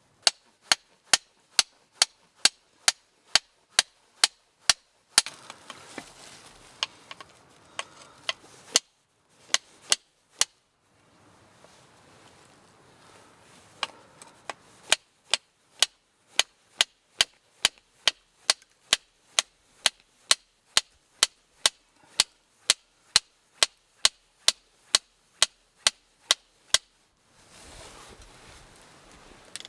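Wood being chopped with quick, evenly spaced sharp blows, about two a second, in runs broken by short pauses.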